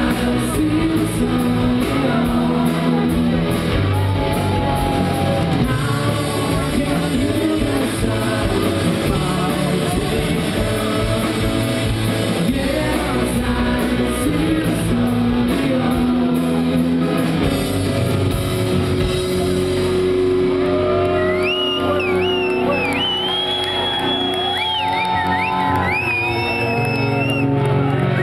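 Rock band playing live, amplified, with singing, guitars and drums. About two-thirds of the way through the cymbals and drums drop away and high sliding lead lines carry on over the band.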